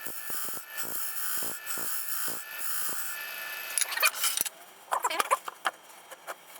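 A turning tool scraping and cutting wood on a running lathe for about three and a half seconds, then stopping, followed by a few metal tools clinking as they are handled.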